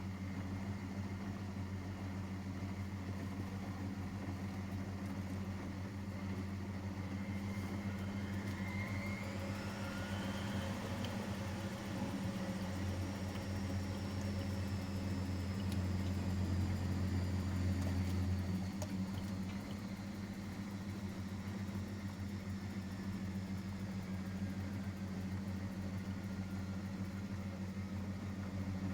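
Miele Professional WS5436 washing machine running with a steady low hum. About eight seconds in, a motor whine rises in pitch, then slowly falls away over the next ten seconds.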